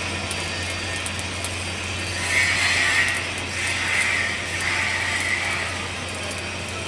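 Steady mechanical hum and noise from machinery, with a high metallic squeal starting about two seconds in, coming in three swells and fading out about five and a half seconds in.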